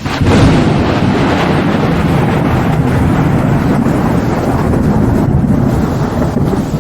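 Thunderstorm sound effect: a loud, steady, deep rumble of thunder that swells up sharply at the start and holds.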